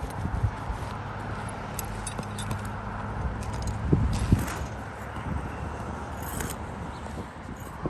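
Handling noises: a few sharp knocks, strongest twice about four seconds in, scattered clicks and scrapes, and a brief rustle about six seconds in, over a steady low hum.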